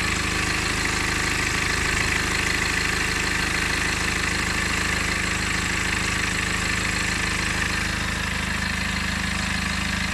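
BMW N47 four-cylinder diesel engine idling steadily, with a steady higher-pitched whir over the engine note. The owner suspects this is timing chain noise.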